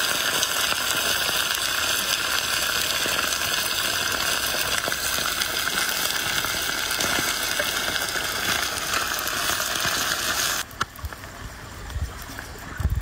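Small whole fish deep-frying in hot oil in an iron wok: a loud, steady sizzle that drops sharply in level about eleven seconds in, with a few low knocks near the end.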